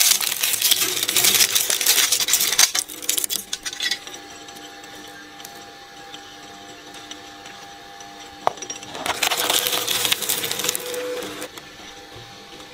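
Dual-shaft shredder crunching through a plastic bag of toys and packaging with dense crackling and snapping. About three seconds in it drops to a steady hum, the blades turning empty. About nine seconds in a second item (a fabric cap) is crunched, and then it hums again.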